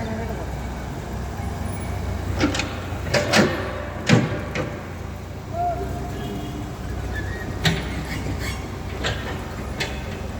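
Excavator's diesel engine running steadily, with a series of sharp knocks, the loudest about four seconds in.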